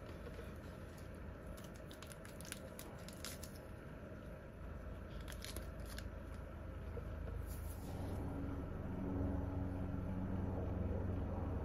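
Maitake mushroom being torn apart by hand: a run of soft crackles and tearing snaps over the first six seconds or so, and one more a little later. A steady low hum runs underneath and grows louder from about eight seconds in.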